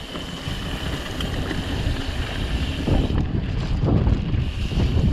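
Wind rushing over the camera microphone as a mountain bike rides fast down a dirt singletrack, with the bike knocking and rattling over bumps from about three seconds in.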